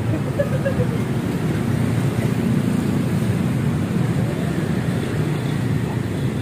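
Steady low rumble of passing road traffic, with no single vehicle standing out.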